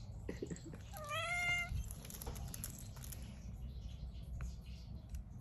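A domestic cat meows once, a short call about a second in that lasts under a second.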